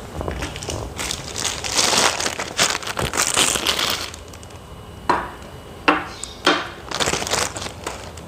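Thin plastic packaging sleeves crinkling and crackling as they are pulled off teak wooden table legs, with three sharp knocks a little past the middle.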